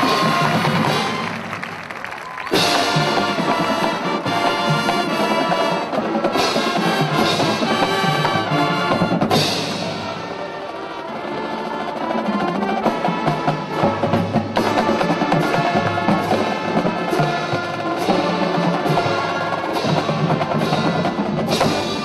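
Marching band playing: a held solo brass note fades out, then the full band of brass and drumline comes in loudly about two and a half seconds in, with sharp percussion hits over sustained brass chords in the second half.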